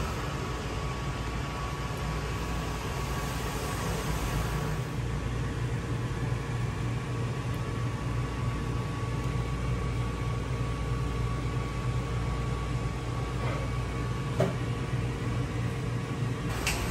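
Steady mechanical hum and hiss of bakery equipment running, with a faint steady high whine; a few light knocks near the end.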